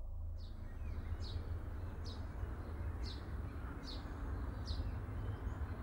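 A small bird chirping, short high chirps each dropping in pitch, about one a second, over a steady low rumble of outdoor background noise.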